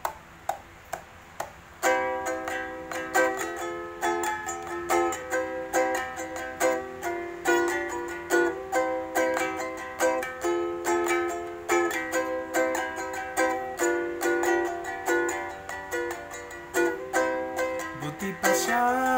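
Acoustic ukulele: a few soft single notes, then rhythmic strummed chords from about two seconds in. A man's singing voice comes in near the end.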